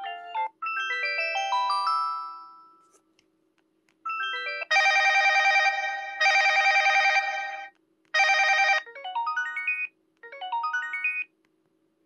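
A ZTE Z222 flip phone's small speaker plays short ringtone previews one after another, with pauses between them. First a rising run of electronic notes fades out. After a pause a dense, loud chiming tune plays, then a short burst and two brief falling runs of notes.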